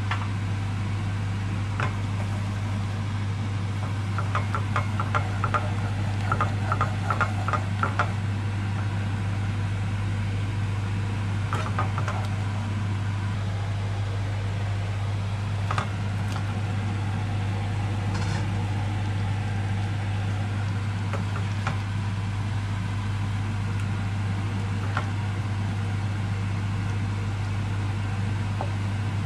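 Steady low hum throughout. About four seconds in, a spice shaker is shaken over a frying pan in quick runs of ticks. Later come a few knocks and clicks as boiled potato wedges are tipped from a metal sieve into the pan.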